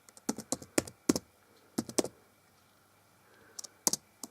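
Typing on a computer keyboard: quick runs of keystrokes in the first two seconds, a pause of about a second and a half, then a few more keys near the end.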